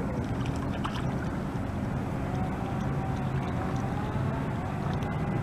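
A steady low rumble, with faint, drawn-out, wavering calls of geese over it through the middle.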